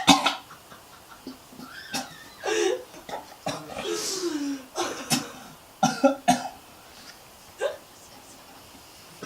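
A man coughing and gagging in a string of short, irregular bursts while forcing down a mouthful of vomit omelette. The loudest burst comes right at the start, and the bursts thin out and grow quieter over the last few seconds.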